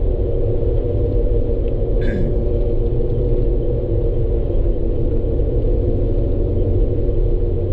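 Road noise from a vehicle being driven: a steady low rumble of engine and tyres with a constant hum over it. A short, high sound with a falling tone cuts in briefly about two seconds in.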